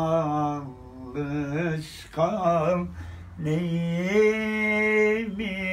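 A man singing a slow Turkish song in long, wavering held notes, in phrases broken by short pauses, with a bowed violin playing along.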